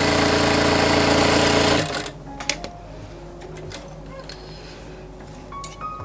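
Industrial lockstitch sewing machine running steadily, sewing a long gathering stitch along the fabric edge, then stopping abruptly about two seconds in; a few small clicks of handling follow.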